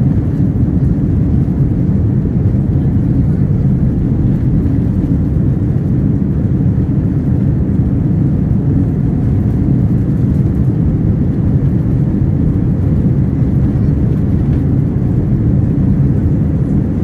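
Jet airliner's engines at takeoff power heard from inside the cabin: a loud, steady low rumble, loud enough to drown out speech.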